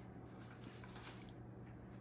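Near silence: quiet room tone with a steady low hum and a few faint soft clicks.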